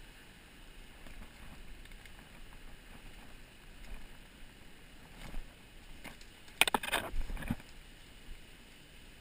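Footsteps through dry leaf litter and brush, with twigs and branches rustling and crackling, and a louder cluster of sharp snapping crackles about two-thirds of the way through.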